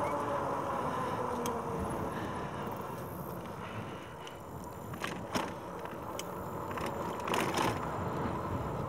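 Fat-tyre e-bike rolling along a trail: steady rolling rumble, with a few short clicks and rattles about five and seven and a half seconds in.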